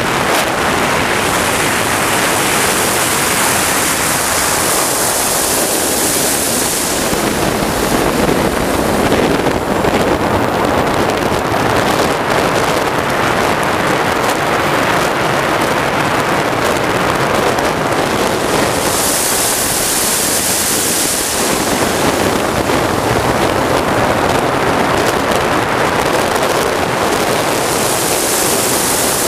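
Turbine engine of a large RC sport jet running in flight, a continuous loud rush mixed with wind on the microphone. Its high hiss swells and fades three times as the jet passes.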